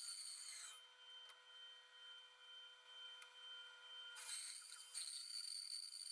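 Bandsaw cutting through a small tea tree burl, a fairly faint hiss of the blade in the hard wood. The cutting noise drops away about a second in, leaving a faint steady hum for about three seconds, then picks up again.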